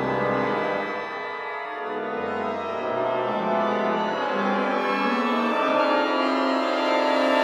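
Orchestral avant-garde music: long held chords with an organ-like tone that shift slowly from one pitch cluster to the next. A low held tone drops out about half a second in, and the sound grows louder toward the end.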